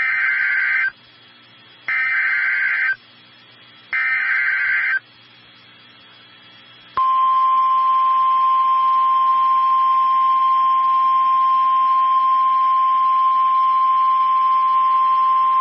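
NOAA Weather Radio alert signal: three buzzing SAME data bursts, each about a second long with a second's pause between them. Then, about seven seconds in, the steady single-pitch 1050 Hz warning alarm tone holds for about nine seconds. Together they mark the start of a new warning broadcast.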